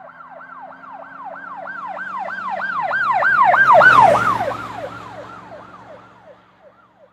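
Emergency vehicle siren in a fast yelp, about three falling sweeps a second, with the vehicle's engine underneath. It grows louder, is loudest about four seconds in, then fades away as the vehicle passes, the engine's pitch dropping as it goes by.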